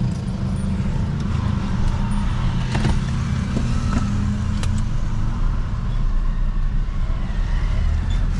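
Chevrolet S10 pickup driving, its engine and road noise a steady low drone, with a few faint clicks.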